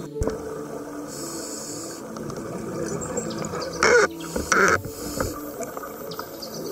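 Underwater sound of a scuba diver's exhaled bubbles from a regulator: two loud bubbling bursts about four seconds in, over a steady underwater hiss.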